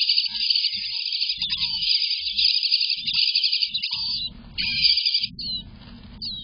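Eastern bluebird nestlings, about two weeks old, begging in the nest box: a continuous high-pitched chorus of calls that breaks off about four seconds in and returns briefly. A low rumble follows near the end.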